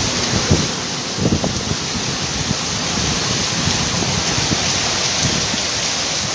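Heavy rain pouring down steadily, with a few low bumps in the first second and a half.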